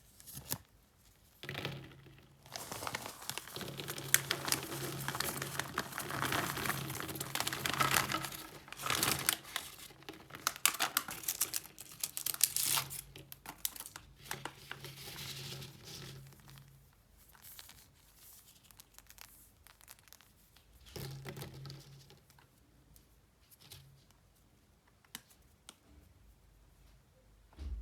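Plastic candy wrappers being crinkled and torn open. The crackling is dense for the first half, then comes in short bursts and faint ticks.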